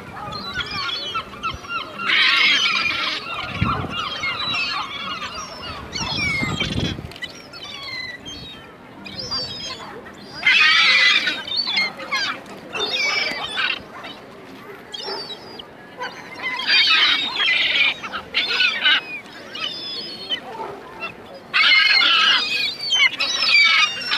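A flock of gulls calling over food being thrown to them, with many short calls and loud bursts of calling about two, ten and a half, seventeen and twenty-two seconds in. A low rumble runs under the calls for the first seven seconds or so.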